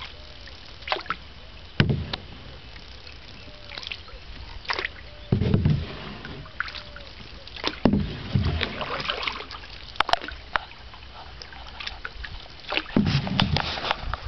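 Canoe being paddled with a wooden paddle: irregular dips and splashes every few seconds, with low thumps and an occasional sharp knock from the paddle and hull.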